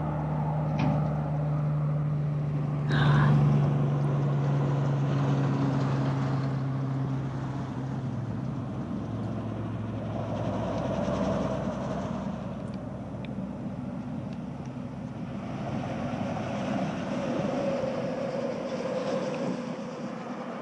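A low, steady engine drone that fades away after about eight seconds, over a constant rushing noise, with one sharp knock about three seconds in.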